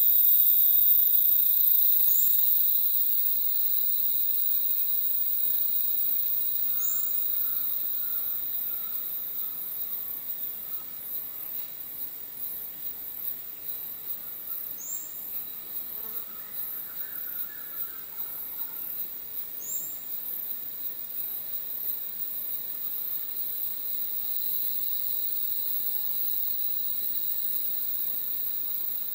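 Rainforest insect chorus: a very high, rapidly pulsing buzz over steady shrill tones, easing somewhat over the first ten seconds and then holding. A short high chirp sounds four times.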